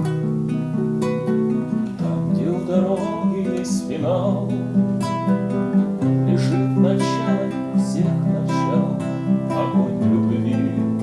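A song performed live to acoustic guitar accompaniment, with a voice singing over it about two seconds in and again from about six seconds to near the end.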